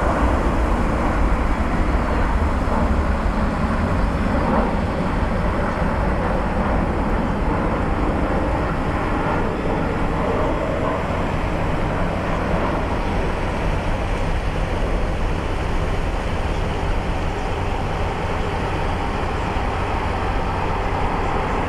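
Boeing 737-800 jet engines running with a steady rumble as the airliner comes in on final approach and lands.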